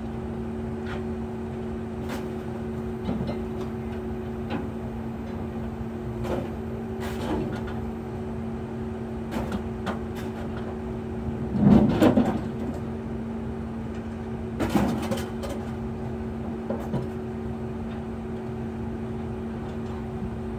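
Scrap metal clanking and scraping as pieces are pulled and shifted in a scrap pile, with a loud clatter of several impacts about 12 seconds in and a smaller one about 15 seconds in. A steady machine hum runs underneath.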